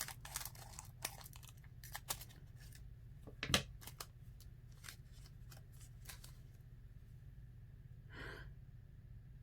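Trading-card pack wrappers being handled and torn open: irregular crinkling and crackling clicks, with one sharper snap of the wrapper about three and a half seconds in and a soft rustle of cards near the end.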